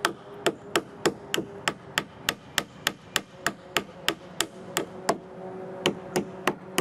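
A hammer striking nails in wooden 2x4 stair spindles to drive them back out, a steady run of sharp knocks about three a second with a brief pause near the end.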